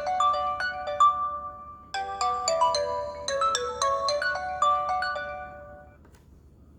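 Stock BLU Advance 4.0 L ringtone playing: a short melody of quick pitched notes that starts over about two seconds in, then fades out near the end.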